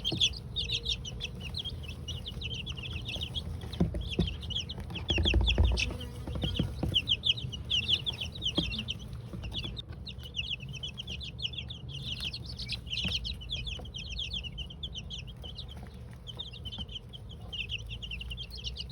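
A flock of two-week-old chicks (Golden Comet, White Leghorn, Australorp and Rhode Island Red) peeping in a continuous chorus of rapid, short, high cheeps. A low rumble comes up about five seconds in.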